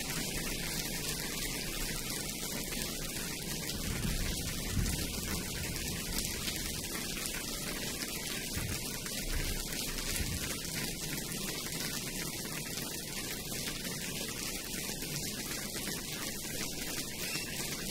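Audience applauding, a steady dense clapping that keeps up without a break.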